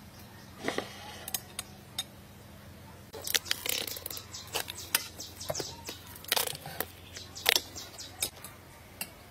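Chopsticks and dishes clicking and tapping at a meal, irregular sharp clicks that come thickest from about three to five seconds in.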